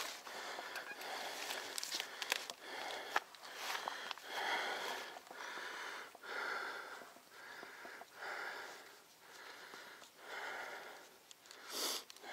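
Heavy rhythmic breathing of a mountain biker under exertion, about one breath a second, with a brief sharp noise near the end.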